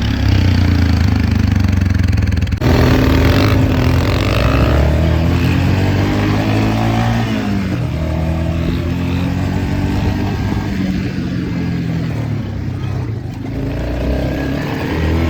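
A motor vehicle engine running loudly, its pitch rising and falling as it speeds up and slows down, with a sudden change in the sound about two and a half seconds in.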